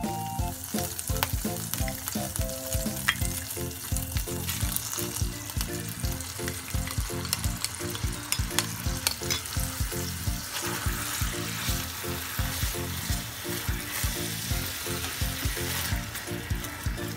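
Burger sauce sizzling and bubbling in a hot frying pan as it is scraped in from a spoon and stirred with a spatula, with light scrapes and clicks of the utensils. Background music with a steady beat plays underneath.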